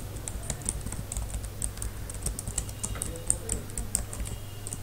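Computer keyboard being typed on: a quick, uneven run of key clicks, several a second, over a low steady hum.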